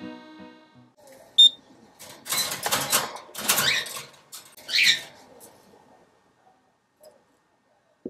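Background music fades out, then a wire birdcage's front door is opened and rattles in several loud bursts as it swings down into a landing platform.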